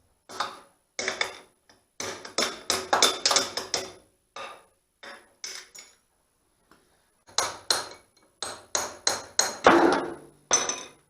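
Hammer blows on steel in two quick runs of about ten strikes each, several a second, with a few lighter taps between. They are typical of knocking out a backhoe cylinder's pivot pin.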